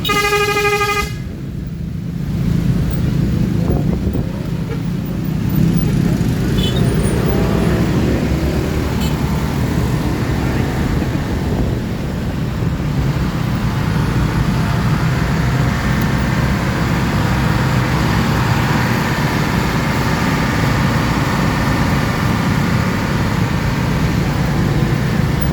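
A vehicle horn sounds one steady note for about a second at the start, followed by the steady rumble of passing engines and road traffic.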